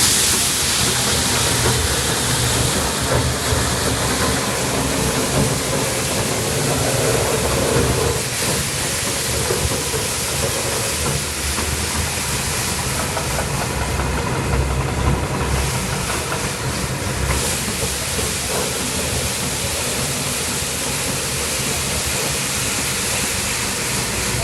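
Forklift-mounted road sweeper at work: the forklift's engine running steadily under a constant loud hissing scrub from the rotating sweeper brush, the hiss dipping briefly a couple of times.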